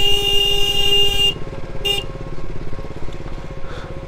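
A vehicle horn blows for just over a second, then gives a short second toot. Underneath, a motorcycle engine runs steadily at low speed in a traffic queue.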